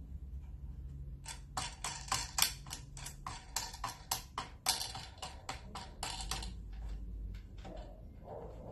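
Irregular run of sharp clicks and knocks as the parts of a homemade wooden bottle-cutting machine are set by hand, adjusting the stop for the bottle's length. The clicks are densest from about a second and a half in to about six seconds in, over a low background hum.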